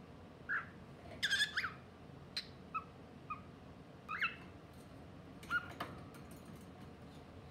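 Albino pearl cockatiel giving short, scattered chirps and whistled calls that slide up and down in pitch, about eight in all, with a quick cluster a little over a second in. A few light clicks come near the end.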